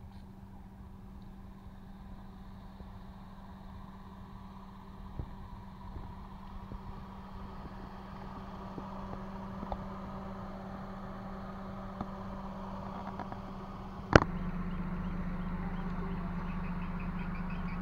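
A steady low hum with a few faint taps, growing slowly louder; a sharp click about fourteen seconds in, after which the hum is louder and a little lower.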